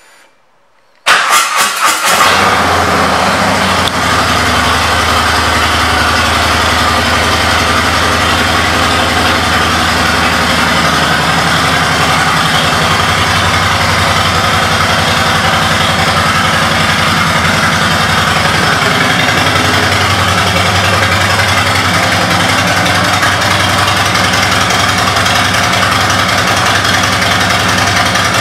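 Harley-Davidson Road Glide's Milwaukee-Eight V-twin with an aftermarket exhaust starting about a second in, catching with a few quick surges and then settling into a steady idle.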